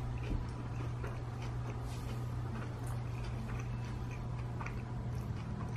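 A person chewing a mouthful of sushi roll up close: soft, scattered mouth clicks and smacks over a steady low hum.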